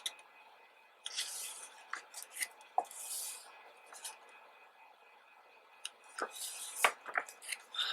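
Pages of a new photo book being turned by hand: a few soft paper swishes, with small sharp clicks and pops as the pages, which are sticking, come apart.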